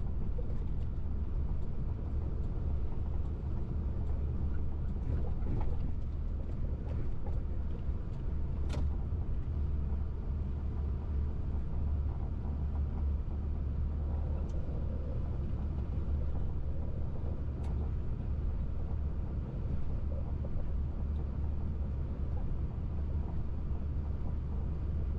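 Heavy goods truck's engine and running gear heard from inside the cab as the truck rolls at low speed: a steady low drone, with a few short sharp clicks, one about a third of the way in and another about two-thirds in.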